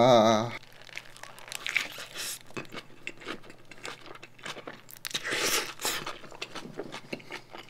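Wobbling drawn-out groan from a man for the first half second, then close-miked eating: bites into a soft burger and chewing, with the paper wrapper crinkling in his hands, in short rustling bursts around two seconds and five to six seconds in.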